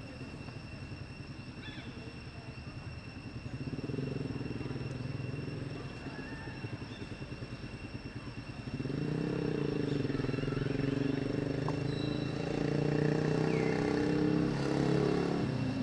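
An engine running with a low, fast-pulsing note, growing louder about nine seconds in.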